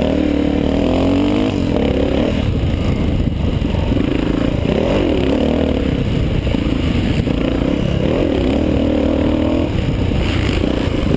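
Honda XR500's four-stroke single-cylinder engine under load on a dirt motocross track, revs rising and falling several times with throttle and gear changes.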